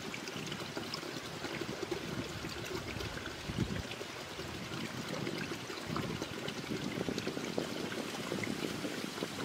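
Shallow stream trickling steadily over rocks, with a brief low thump about three and a half seconds in.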